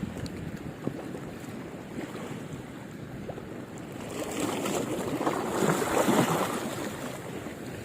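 Wind buffeting the microphone over washing water, with a louder rush swelling about halfway through and easing near the end.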